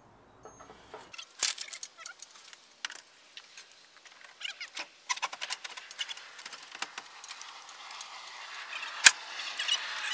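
Metal clinking and rattling as a VW diesel engine is let down out of the engine bay on an engine hoist's chain, with a sharp metal clank about nine seconds in and a hiss building near the end.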